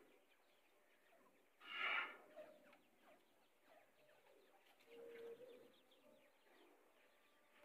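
Grey francolin giving a single short call about two seconds in. A fainter low note follows around five seconds, and the rest is quiet.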